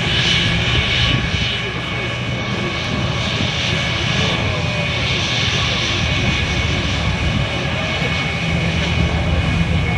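Airbus A321's twin turbofan jet engines running steadily as the airliner moves along the runway: a constant high whine over a low rumble.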